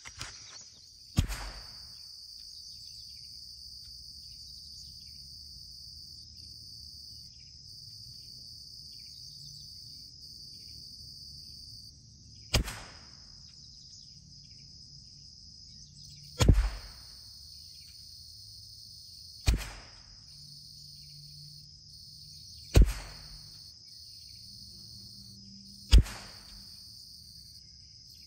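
Six single shots from a CZ 457 MTR .22 LR rifle. There is a long pause after the first, then the rest come about three to four seconds apart. Under them runs a steady high insect drone.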